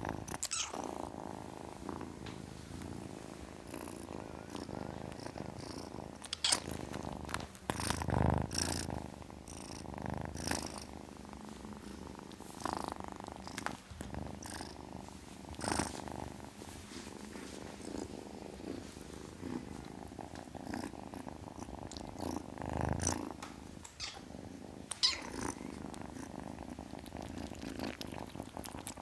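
Kitten purring steadily and continuously, with a few brief sharp noises scattered through it.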